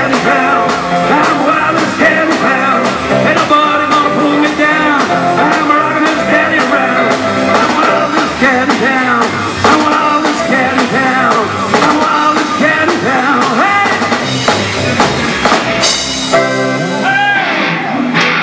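Live rockabilly band playing an instrumental break: double bass, electric guitar and drum kit at a steady driving beat. Near the end the bass and drums stop and a chord rings out.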